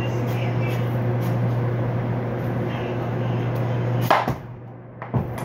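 Steady low hum, then one sharp crack about four seconds in as a whole watermelon splits open under a knife.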